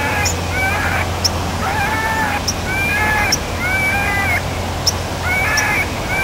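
Predator call playing a repeated animal distress cry to lure coyotes: short, wailing, arched cries, roughly one a second.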